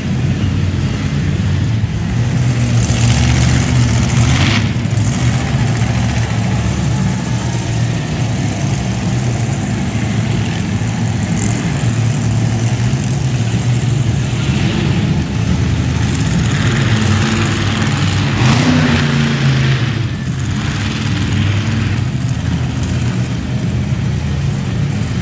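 Monster truck engine running loud, revving up in several surges as the truck drives around the dirt track.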